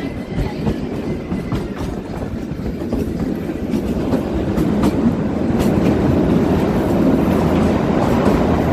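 Kalka–Shimla narrow-gauge toy train running along the track, a steady rumble with wheels clicking over the rail joints, getting louder about a third of the way in.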